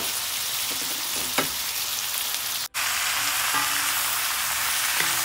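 Vegetables sizzling in a hot cast-iron wok as a wooden spatula stirs them, with a few light knocks of the spatula against the pan. The sizzle breaks off for an instant about two and a half seconds in.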